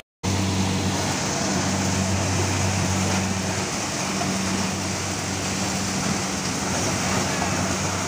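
Corn harvester's engine running steadily, a low, even drone with the rushing noise of the working machine over it.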